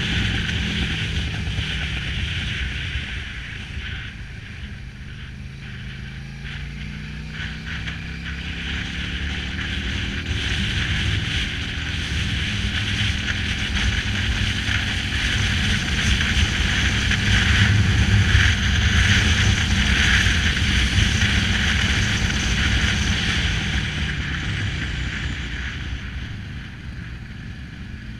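Cruiser motorcycle engine running at road speed under a strong rush of wind noise. The sound swells to its loudest past the middle, then falls away near the end as the bike eases into a bend.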